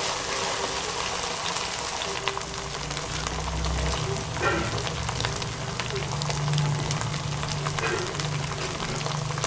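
Chopped onion, ginger-garlic paste and crushed green chilli frying in oil in a steel kadhai: a steady sizzle with many small crackles, stirred with a wooden spoon.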